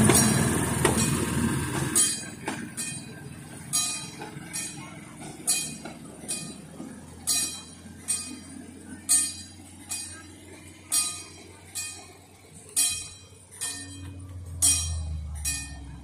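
A rail-wheeled fire-patrol utility vehicle runs past on the narrow-gauge track for the first two seconds. Then a level crossing warning bell rings with sharp, bright dings a little under once a second.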